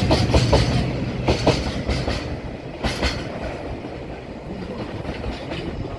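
Wheels of Taki 1000 tank wagons clattering over rail joints, the classic freight-train joint sound. The clicks come in clusters, fewer and fainter after about three seconds as the last wagon rolls past.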